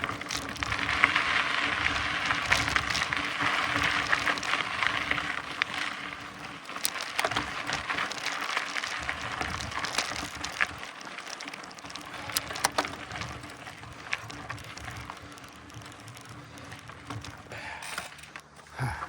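Mountain bike rolling over a dirt trail: steady tyre noise on gravel and dirt with scattered sharp clicks and rattles from the bike. The noise is loudest for the first several seconds, then eases off, with a short knock near the end.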